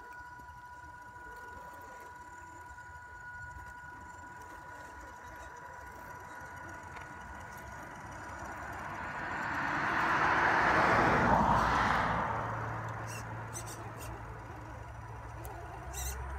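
Electric motors of two RC scale crawler trucks, an RC4WD Trail Finder 2 and a long-wheelbase Axial SCX10, whining steadily as they crawl. A loud rushing noise swells over a few seconds in the middle and then fades.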